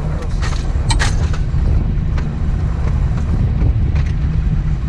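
Outboard motor on a 17 ft Boston Whaler running steadily under way through rough chop. Sharp slaps and splashes of water against the hull come at irregular intervals.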